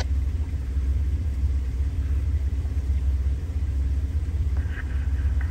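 Jeep Wrangler TJ engine idling, heard from inside the cab as a steady low rumble with a faint hum above it.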